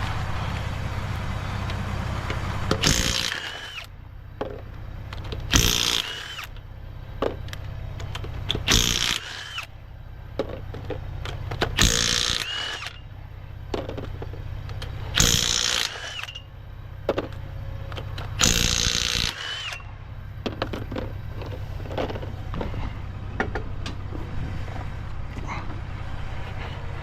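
Cordless impact wrench working the wheel's lug nuts: six short bursts, one about every three seconds, each nut in turn. A steady low engine hum runs underneath before and after the bursts.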